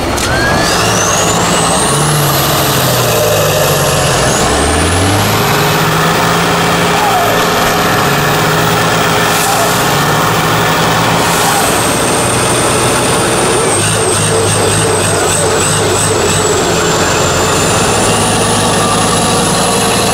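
Heavy off-road truck's diesel engine running hard, its revs rising and falling again and again as it works through terrain, with a high whistle that climbs and falls along with it.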